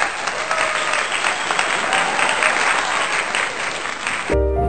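Applause: dense, steady clapping. It cuts off sharply about four seconds in as music with a steady bass begins.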